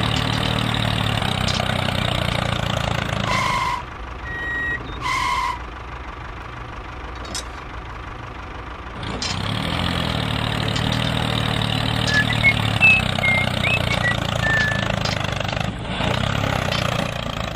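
Tractor engine running steadily, dropping away about four seconds in and coming back about nine seconds in. Two short beeps sound while the engine is low.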